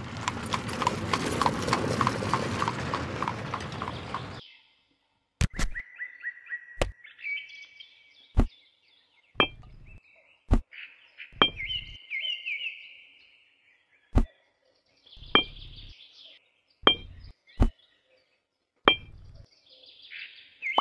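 Sharp clicks and taps of tiny clay bricks being set down and stacked one at a time, about a dozen separate knocks. Short high chirping sounds come between them. It opens with about four seconds of dense noisy rustling with rapid ticks, which stops suddenly.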